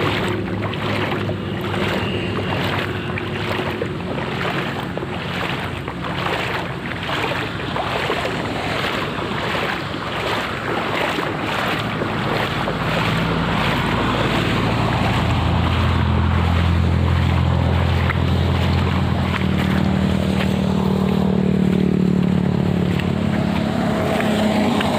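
Footsteps splashing through shallow floodwater at a steady walking pace, about two steps a second. An engine hum comes in about halfway through and grows louder toward the end.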